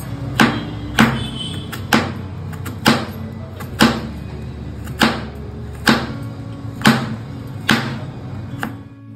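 Chef's knife slicing down onto a plastic cutting board, a sharp knock about once a second, over quiet background music.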